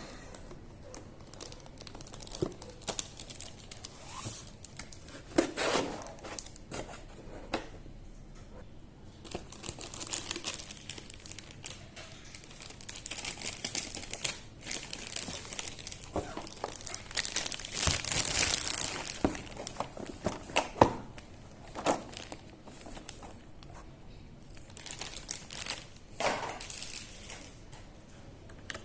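Packaging being crinkled and rustled by hand, with some tearing. It comes as irregular crinkles, the longest and loudest about eighteen seconds in.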